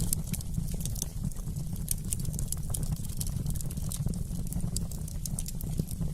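Wood fire in a fireplace crackling, with frequent sharp irregular pops and snaps over a low steady rumble.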